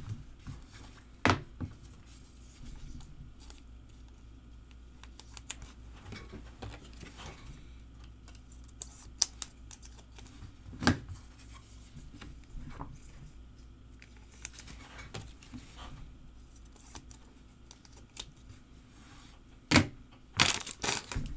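Hands handling trading cards and crinkly foil pack wrappers, with soft rustling and occasional sharp clicks and taps, the loudest about a second in, near the middle and near the end.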